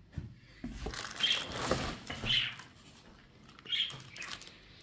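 Plastic washer parts being handled: scattered clicks and rubbing, with short high squeaks about once a second.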